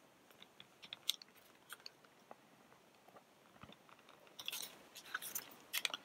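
Faint clicks, scrapes and crackles of plastic as a small tool pries at the housing of an IKEA Spöka nightlight. There is a denser patch of crackling about four and a half seconds in and a couple of sharp clicks near the end.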